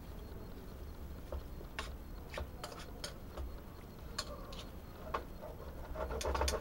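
Broad beans being pushed and dropped by hand into a metal cooking pot: irregular light clicks and taps, with a quick cluster of them near the end.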